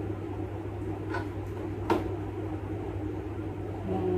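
Small glass miniature liquor bottles clinking lightly as they are handled and set back among others, a few separate clicks, the sharpest about two seconds in, over a steady low hum.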